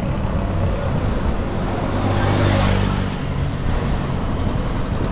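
Traffic: a motor vehicle's engine running close by with a steady low hum, swelling about two seconds in and easing off near the end, over road hiss.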